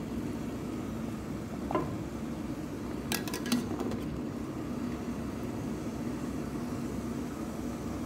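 Water boiling steadily in a stainless steel pot, with a few sharp metal clinks of a utensil against the pot as green bell peppers are lifted out: one near two seconds in and a quick cluster about a second later.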